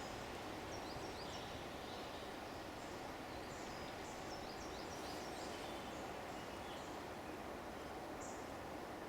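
Woodland ambience: small birds chirping in quick, short high notes that slide downward, over a steady rushing background noise.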